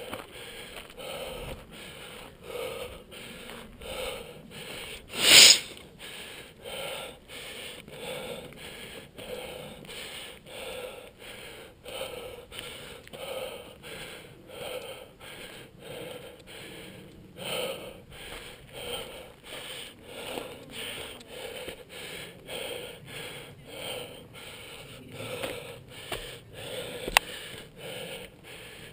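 Heavy breathing of a hiker winded from the climb, in a quick, even rhythm, with one much louder burst about five seconds in.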